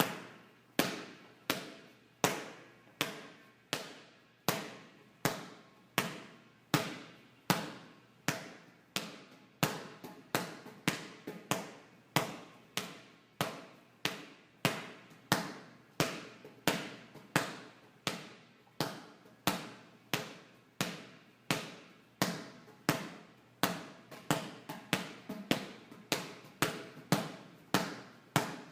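Large inflated yoga ball bouncing repeatedly on a soft weight-room floor: a steady run of hollow bounces about one every three-quarters of a second, each with a short ringing tail. The bounces come faster and lighter in the last few seconds.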